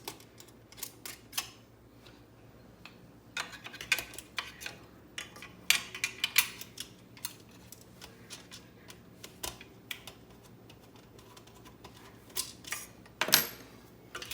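Plastic parts of a Keurig coffee maker clicking, tapping and clattering in irregular clusters as the machine is handled and taken apart, with one sharper clack near the end.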